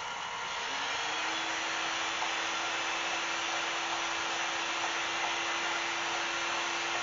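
Benchtop belt sander and shop-vac dust extraction running: a steady whooshing noise with a hum that comes up to speed about a second in and holds steady.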